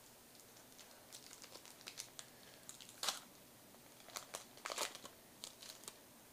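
Foil wrapper of a Pokémon trading-card booster pack crinkling and tearing open, in scattered crackles with two louder ones about three and five seconds in.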